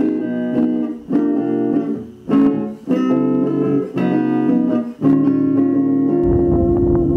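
Background music led by guitar, with chords struck and changing about once a second.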